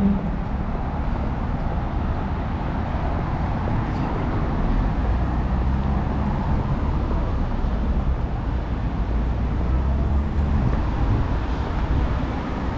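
City street traffic noise: a steady low rumble of cars, a little louder through the middle as a car drives past close by.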